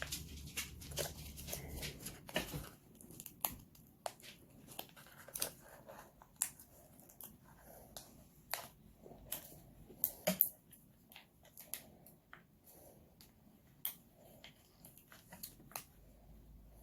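Small plastic frosting pouch crinkling and clicking in the hands as it is pulled and twisted in attempts to tear it open, in irregular faint crackles with a louder snap about ten seconds in.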